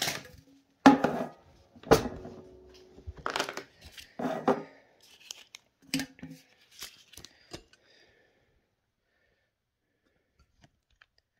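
A savings tin and paper banknotes being handled: a run of sharp knocks, clatters and rustles over about the first eight seconds, one knock followed by a brief ring.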